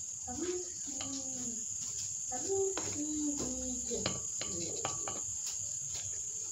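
Steady high-pitched chirring of crickets, with faint distant voices in the first half and a few light clicks.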